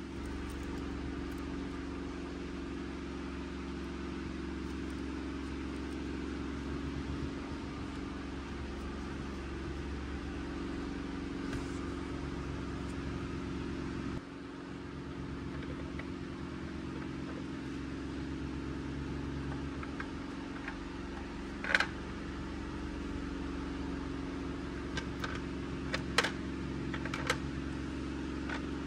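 A steady low electrical or fan-like hum, with a few sharp clicks of small plastic toy pieces being handled and set down: one about two thirds of the way in and several more near the end.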